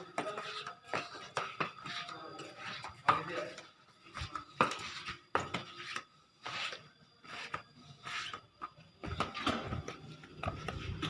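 Footsteps on a hard floor, irregular steps about every half second to a second. A low engine rumble comes in near the end.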